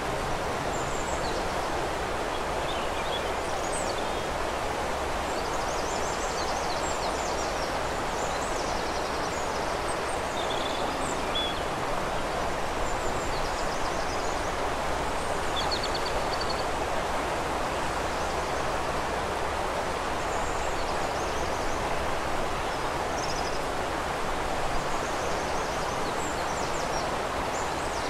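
A steady rush of flowing river water, with small birds chirping and trilling now and then over it.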